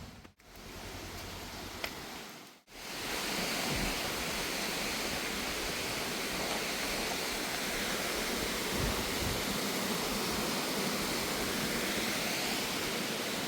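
Steady, even rush of water falling, typical of a waterfall, broken by two short gaps in the first three seconds.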